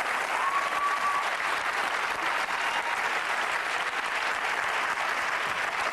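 Studio audience applauding steadily, with one short high call or whistle rising out of the clapping about half a second in.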